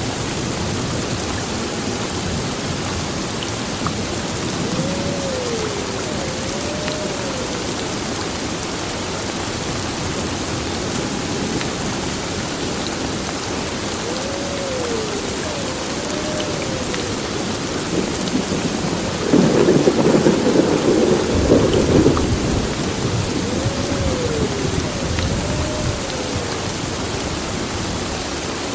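Heavy rain pouring steadily on a building, with a loud thunderclap rumbling about twenty seconds in.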